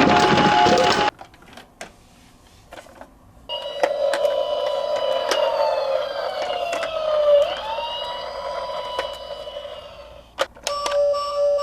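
Several emergency vehicle sirens sounding together, one sweeping down in pitch and jumping back up partway through, with scattered small clicks. A louder sound cuts off about a second in, and a pulsing two-tone beep starts near the end.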